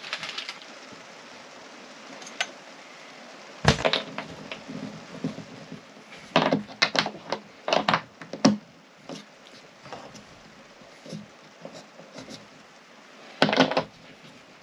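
Sharp knocks and clicks of hook hardware and hands on a thin wooden caravan wall panel as towel hooks are fitted by hand: one knock about a quarter of the way in, a quick cluster around the middle, and another near the end.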